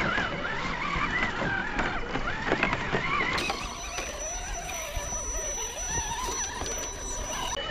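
Electric motors and gear drivetrains of radio-controlled rock crawlers whining under load, the pitch rising and falling irregularly with the throttle as they crawl over rocks and roots, with occasional knocks of tyres and chassis on the rock.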